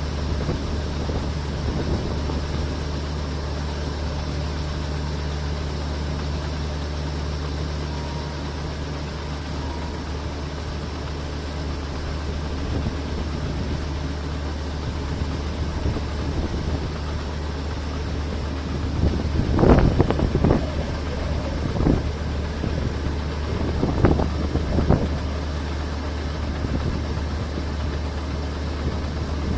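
Diesel engine of a harvest machine running steadily with a low drone, and a few short, louder bursts about two-thirds of the way in.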